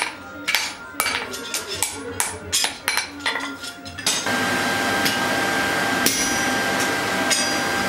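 Blacksmith's hammer striking hot iron on an anvil, ringing blows two or three a second. After about four seconds the blows give way to a steady machine whir with a high whine.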